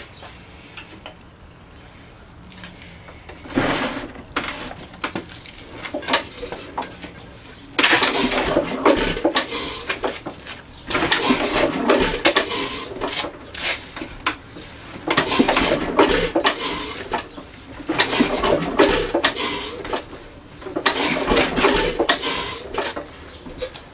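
Hercules 2½ HP antique stationary engine turned over by hand through compression five times. Each turn is a couple of seconds of mechanical clatter and hiss, with a short extra burst a few seconds in. The owner says blow-by can be heard, from brand-new rings that are not yet broken in and a badly worn bore.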